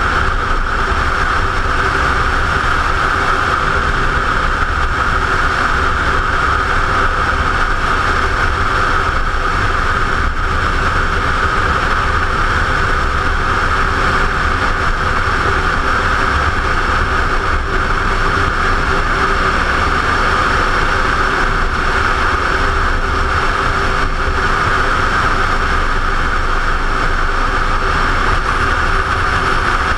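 Motorcycle cruising at a steady speed: a constant engine drone with wind and road noise rushing over the microphone, unchanging throughout.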